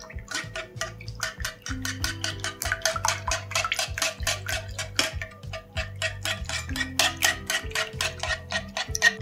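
Wire whisk beating eggs and milk in a non-stick frying pan: fast, regular clicks of the tines against the pan, about five a second.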